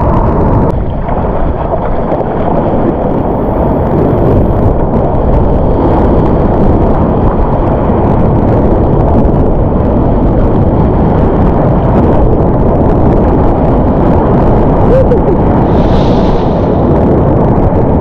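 Loud, steady, muffled rumble of wind buffeting an action camera's microphone mixed with whitewater rushing and fizzing around a surf kayak in broken surf.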